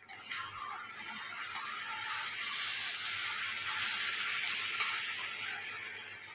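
Boiled chow mein noodles sizzling in hot oil in a frying pan as they are tossed and stirred with a spatula. The sizzle starts suddenly and holds steady, with a couple of short clicks from the utensils.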